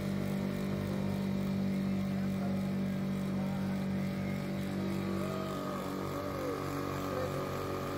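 Boat engine running at a steady speed, giving a constant low hum.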